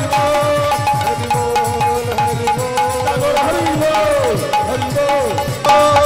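Kirtan music without singing: a harmonium holds a note over a mridanga (khol) drum playing a fast rhythm, with several bass strokes that slide down in pitch. It gets louder near the end.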